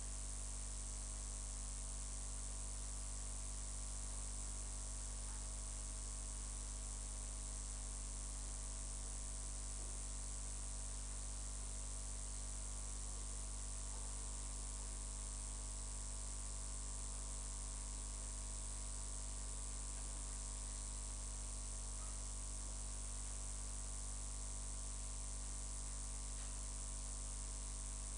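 Steady electrical mains hum and buzz with a layer of hiss, unchanging throughout.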